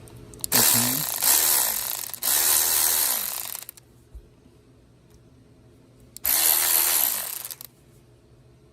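Snap-On CTR2512 1/4-inch cordless ratchet motor running three times, in short runs of about one to a second and a half, its whine rising as it spins up and falling as it stops. It is being driven in both directions by a freshly rebuilt CTB2512 12V NiCad battery, which works.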